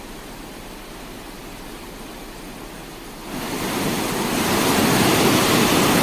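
Swollen river rushing in flood, a steady roar of water with no distinct beat or tone. It is moderate at first, then grows much louder about three seconds in.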